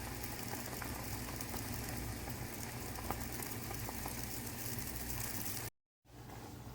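A pot of water with ginger slices boiling: a steady hiss with faint scattered pops. It cuts out for a moment near the end and comes back a little quieter.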